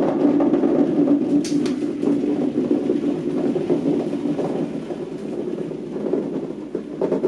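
Hundreds of Nerf Rival foam balls pouring in a steady stream into a clear plastic storage bin, a continuous rush of balls hitting the plastic and each other that eases somewhat past the middle as the bin fills.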